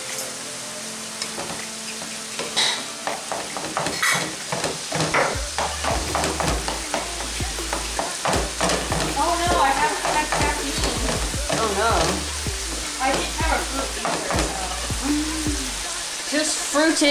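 Taco-seasoned ground beef sizzling and bubbling in a skillet as its liquid boils off, with a spoon stirring through it and knocking and scraping against the pan many times.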